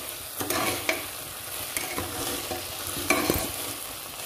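Metal ladle stirring and scraping rice and urad dal frying in a steel pot, with a light sizzle and a handful of sharp clinks and scrapes of the ladle against the pot.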